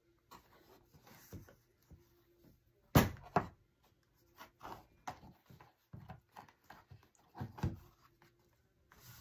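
Light rustling, scraping and knocks as a plastic lotion pump bottle and other small items are handled and fitted into a cardboard gift box. There is a sharp knock about three seconds in and more knocks near the end.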